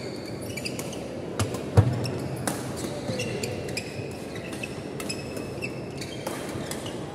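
Badminton rally: rubber-soled shoes squeaking on the wooden court and the shuttlecock cracking off rackets, with one loud thump a little under two seconds in.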